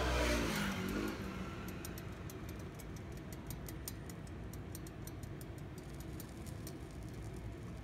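A motor vehicle passing close by, its pitch falling steeply in the first second. Then a steady low hum with a run of faint, regular ticks, several a second.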